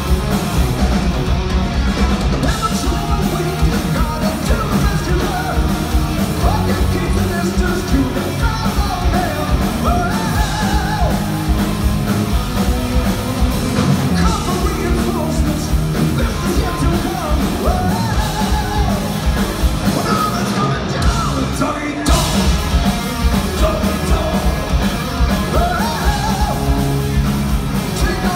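Heavy metal band playing live, with a singer over electric guitars, bass and a drum kit.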